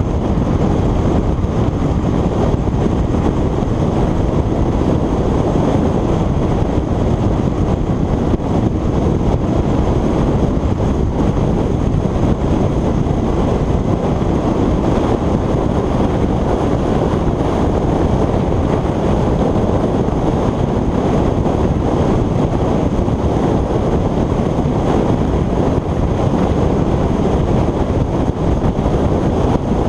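Steady, loud rush of wind over a motorcycle-mounted GoPro Hero 3+ microphone at motorway speed.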